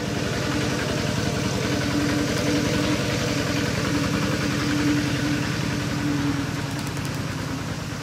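A small engine idling steadily, with a fast, even pulse and a steady hum.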